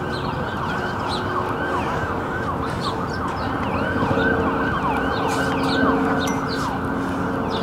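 An emergency-vehicle siren sweeping rapidly up and down, about three sweeps a second, starting about a second and a half in, over a steady background of city noise.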